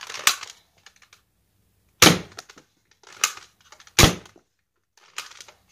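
Nerf Fortnite Hammer Action SR dart pistol being cocked and fired several times in a row, giving five sharp snapping clicks spaced about one to two seconds apart.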